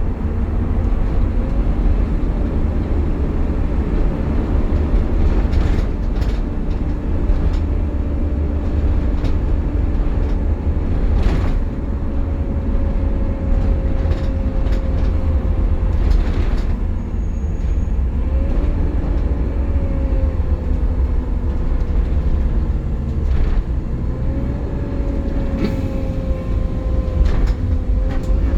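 Optare Solo midibus heard from inside while under way: a heavy low engine and road rumble with a whining "hoovering" tone that climbs sharply twice and sags slowly between, plus short rattles and knocks from the body.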